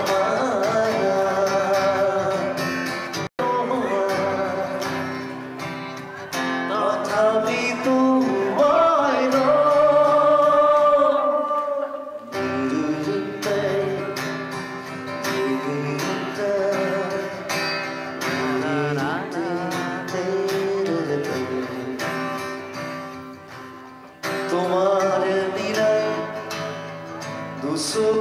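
A man singing live into a microphone while playing an amplified acoustic guitar. About three seconds in, the sound drops out for an instant.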